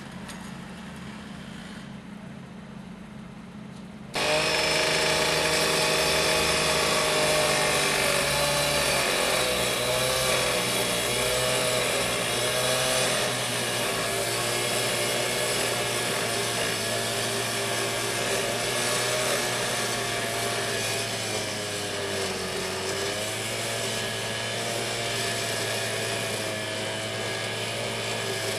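A loud motor-driven power tool used in rail track repair starts abruptly about four seconds in and runs steadily, a hiss with a wavering whine over it. Before it starts, a low steady engine hum.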